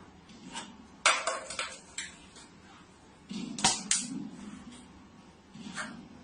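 A handful of short, sharp clatters and knocks of small hard objects, in two quick clusters with pauses between.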